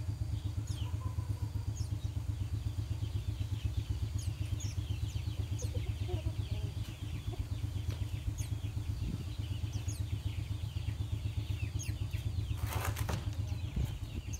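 Small caged birds chirping, with many short falling chirps, over a steady low, rapidly pulsing motor hum. A brief noisy flurry comes about thirteen seconds in.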